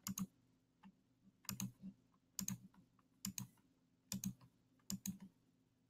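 Faint computer mouse clicks, a short click roughly every three-quarters of a second, some in quick pairs, as notes are picked out one by one on an on-screen xylophone.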